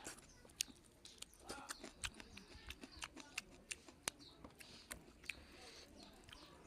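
A person chewing food with wet mouth clicks and smacks, about two a second, fairly quiet.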